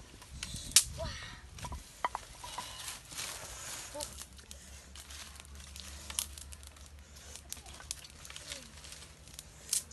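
Dry twigs and leaves rustling and snapping, with scattered sharp cracks, as a small twig fire is built up and catches.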